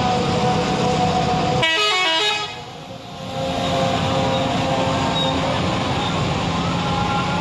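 Indonesian bus 'telolet' horn, a multi-tone musical air horn, sounding several held notes at once; it drops out about two seconds in and sounds again about a second later.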